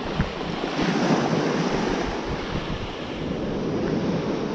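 Ocean surf washing up the beach, with wind buffeting the microphone; the wash swells loudest about a second in.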